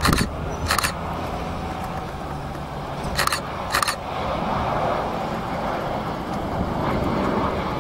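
Boeing 737-800 jet engines running on the landing roll, a steady roar that grows louder from about halfway through. A few short clicks sound over it.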